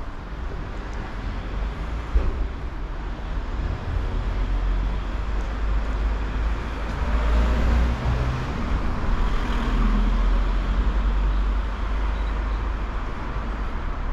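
City street traffic with a steady low rumble. A motor vehicle passes close by, getting louder from about halfway through and fading again a few seconds later.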